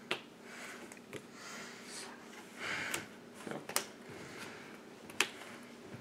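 Sleeved trading cards being handled on a playmat: several sharp taps and clicks as cards are set down and picked up, with soft sliding rustles between them.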